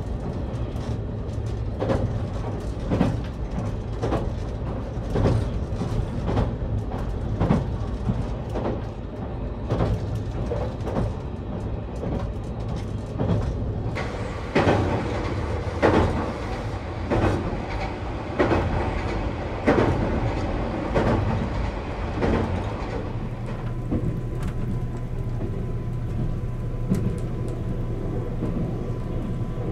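Interior running noise of a JR Kyushu Nichirin limited express train: a steady low rumble with the wheels clicking over rail joints about once a second. The clicks grow louder about halfway through, and near the end they give way to a steadier hum with a faint steady tone.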